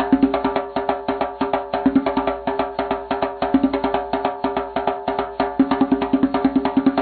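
Background music with a fast, busy percussive beat of wood-block-like taps over steady pitched tones.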